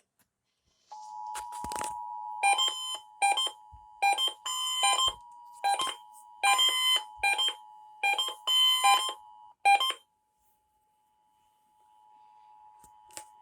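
Emergency Alert System two-tone attention signal: a steady, piercing pair of tones that starts about a second in and cuts off sharply before the tenth second. About ten loud, harsh bursts break over the tone at irregular intervals. The tone returns faintly near the end.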